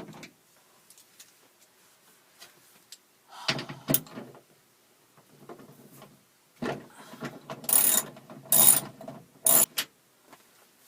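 Socket ratchet clicking in two short spells, about three and a half seconds in and again for about three seconds near the end, as a 10 mm socket works bolts on the sliding-door hardware.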